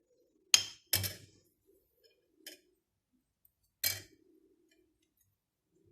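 A few sharp clinks and knocks of kitchenware being handled: two close together near the start, a faint one in the middle, and two more spaced out toward the end.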